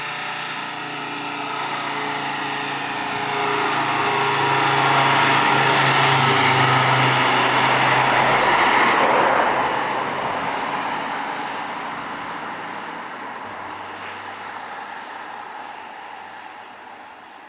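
Fire engine driving past: its engine and tyre noise builds, is loudest around the middle, then fades away.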